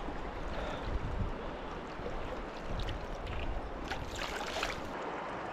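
River water running steadily, with a few brief splashes about four seconds in.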